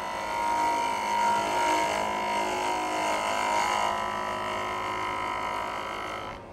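Half-inch bowl gouge cutting across the face of a pine blank spinning on a wood lathe: a steady scraping hiss of the cut over the lathe running, which drops off suddenly near the end as the tool leaves the wood.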